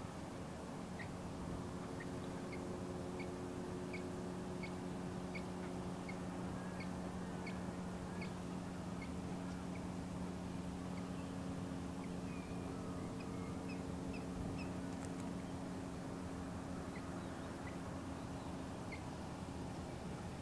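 Osprey calling during mating: a series of short, high whistled chirps, about two a second at first, then more scattered. A steady low hum runs underneath.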